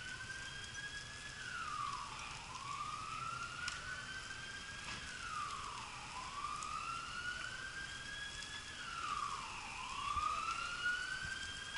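Emergency vehicle siren sounding a wail: each cycle climbs slowly in pitch for about two and a half seconds, then drops quickly, repeating about every three and a half seconds.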